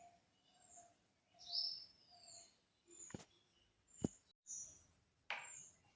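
Birds chirping: a short note repeating about every half second, with high chirps and a falling whistle. Two sharp clicks come about three and four seconds in.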